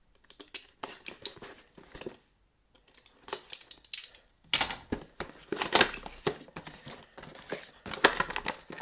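A miniatures booster box and its packaging being opened and handled: irregular clusters of clicks, crinkles and scrapes. There is a brief pause a couple of seconds in, and the handling is busier and louder in the second half.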